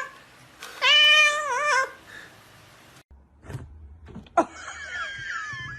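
A cat's single loud, drawn-out meow, about a second long, whose pitch dips and wavers near its end. It is followed by a few faint clicks and thin, high squeaky sounds.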